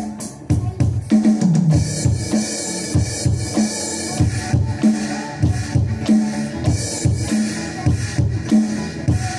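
A band playing during a sound check, led by a drum kit keeping a steady beat on bass drum and snare, with a repeating low note underneath and cymbals washing in about a second in and again later.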